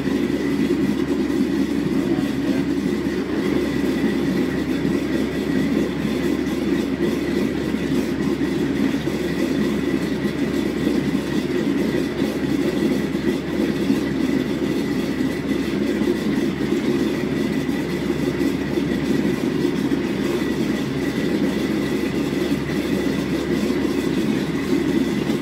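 Vitamix blender motor running steadily, blending soaked sea moss and water into a smooth, pale gel.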